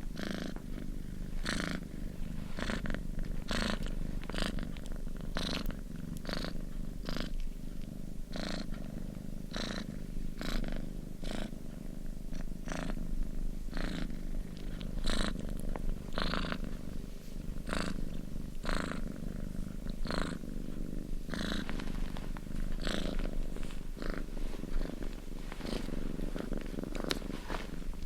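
Domestic cat purring steadily: a low continuous rumble with a breathy rasp that repeats roughly every second as it breathes in and out.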